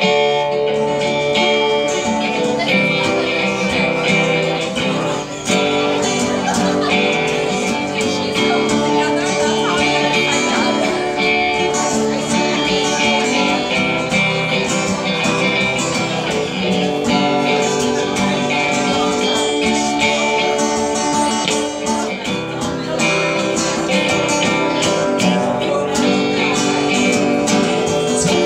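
Live music with a guitar, played continuously and loudly through the whole stretch.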